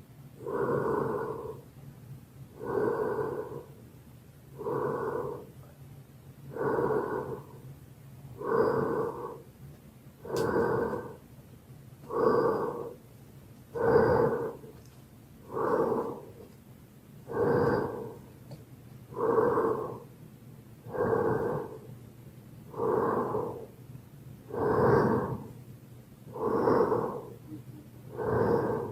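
Michael Myers' masked-killer breathing sound effect: slow, heavy breaths, one about every two seconds, with a faint low hum underneath.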